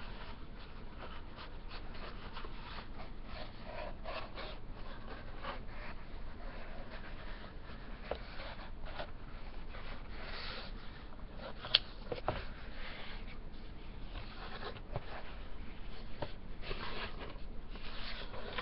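Packaging being handled and pulled open by hand: rustling, rubbing and crinkling with many small clicks, and one sharp click about twelve seconds in.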